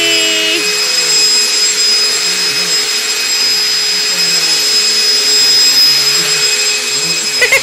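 Upright vacuum cleaner running on carpet: a steady motor whine over an even rushing noise.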